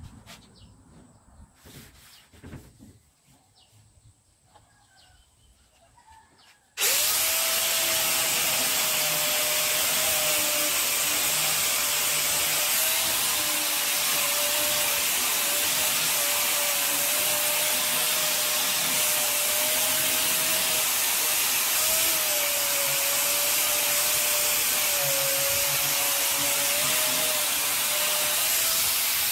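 A few faint taps, then about seven seconds in a corded electric hand grinder starts and runs steadily against the steel bonnet, its motor whine wavering slightly with the pressure as it grinds the paint down to bare metal.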